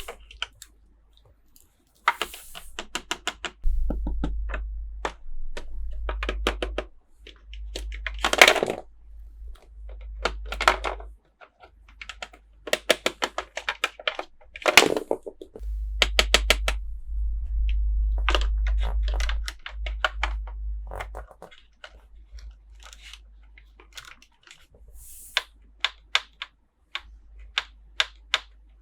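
Plastic toy packaging and small plastic toy pieces being handled: runs of quick clicks and taps, over a low rumble that comes and goes.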